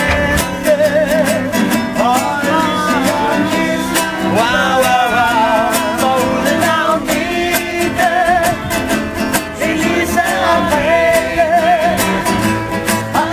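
Acoustic guitar strummed in a steady rhythm, with a singer's voice carrying a melody over it, its held notes wavering with vibrato.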